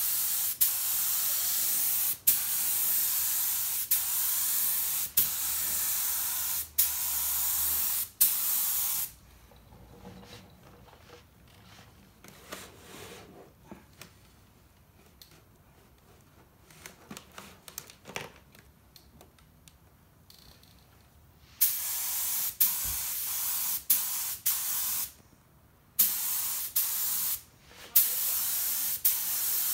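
Iwata LPH 80 gravity-feed spray gun spraying paint in a series of hissing bursts as the trigger is pulled and released. The bursts run for about nine seconds, then stop for about twelve seconds with only small handling clicks, then start again.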